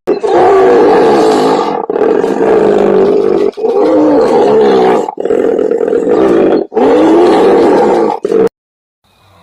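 A big cat roaring loudly: about five long, rough roars of roughly a second and a half each, back to back with brief breaks, cutting off suddenly near the end.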